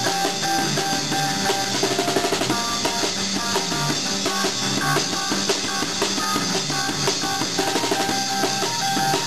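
Live band music: a drum kit keeping a steady beat, with an electric bass guitar and an amplified keyboard playing together.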